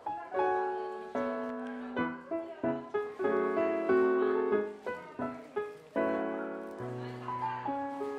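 Background piano music: a melody of struck notes, each starting sharply and fading away.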